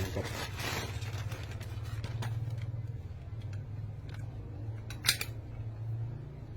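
Light handling clicks and one sharp click about five seconds in, over a steady low hum.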